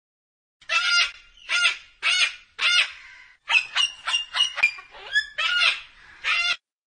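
A white cockatoo calling: a string of harsh, honking squawks, with a quick run of short calls in the middle.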